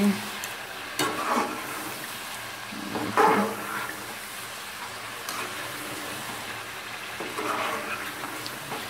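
Chicken frying in a little water in a metal pot, sizzling steadily while a long metal spoon stirs it, with a few louder scrapes of the spoon against the pot about one and three seconds in.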